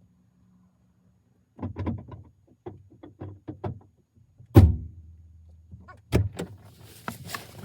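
A run of small clicks and knocks as parts are handled inside a car, then one heavy thump about four and a half seconds in, like a car door or panel shutting, and two more sharp knocks near the end.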